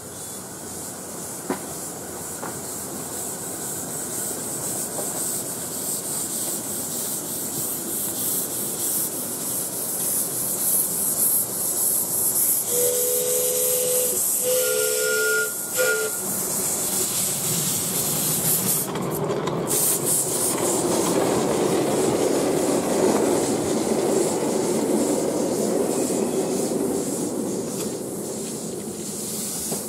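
7¼-inch gauge miniature steam locomotive approaching and passing, its steam hissing and growing louder. About halfway it gives three short blasts on its two-note whistle, then its open passenger carriages rumble past on the rails.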